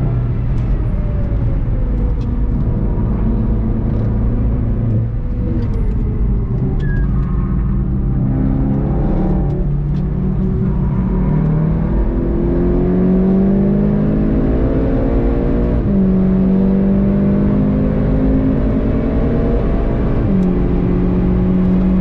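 VW Golf 7.5 GTI TCR's turbocharged four-cylinder engine under hard driving, heard from inside the car over tyre and road noise. The engine note falls over the first few seconds, then climbs through the revs with quick upshifts about two-thirds of the way through and again near the end.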